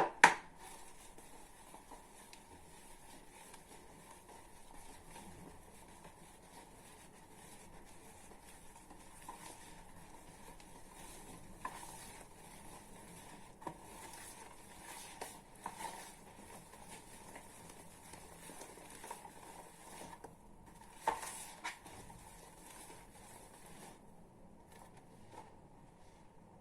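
Faint stirring of cake batter in a bowl as the last of the flour is mixed in, with a few light knocks of the utensil against the bowl.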